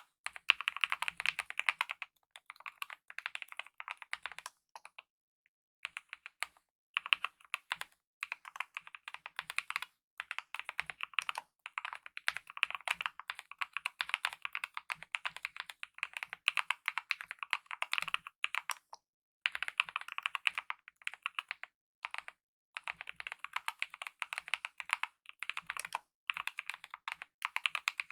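Continuous typing on a mechanical keyboard with lubed optical red linear switches and DSA-profile keycaps. Rapid key clacks come in runs, with short pauses about five seconds in and again near the end.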